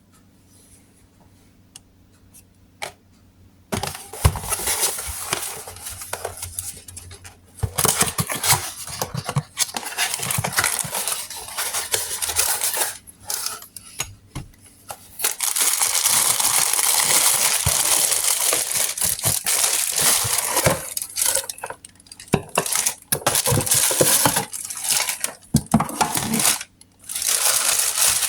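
Packaging of an ICED DIP dip chiller being unboxed and handled: rustling, crinkling and tearing of packing material with clattering knocks of the parts, starting about four seconds in.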